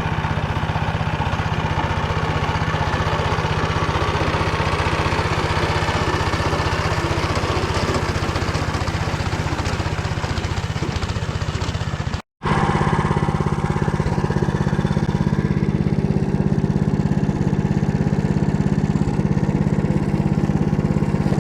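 Small engine of a Motor Sich rotary tiller running steadily under load while milling stubble. It cuts out for a moment just past the middle, then carries on.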